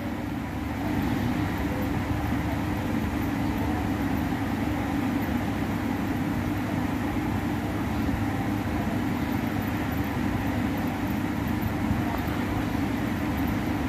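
Steady low mechanical hum and rumble, even throughout, like a running fan or machinery in the background.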